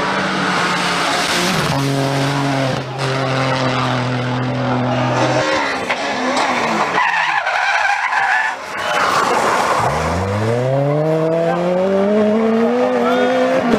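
Rally cars at speed on a stage, heard across several quick cuts. First comes an engine holding a steady note under load, then tyre and loose-surface noise as a car slides. Over the last few seconds an engine accelerates hard, its pitch rising steadily.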